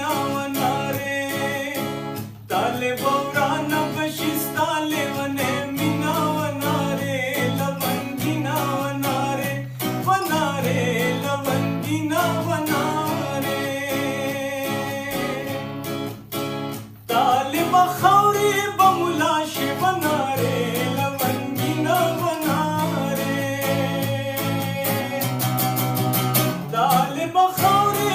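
Background song: a singing voice over guitar accompaniment.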